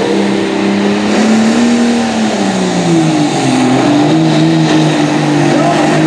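Dodge Ram's Cummins turbo-diesel straight-six pulling a weight-transfer sled at full throttle. The engine note holds, then drops about two seconds in as the sled loads it down, and runs on labouring with a slight waver.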